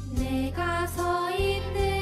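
Children's worship song: a sung melody over a backing track with a steady bass line.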